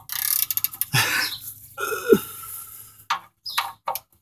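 A 3/8-inch-drive ratchet on the oil pan drain plug clicks quickly as it is worked back and forth to break the plug loose. After that come short grunt-like throat noises of effort and a few sharp knocks.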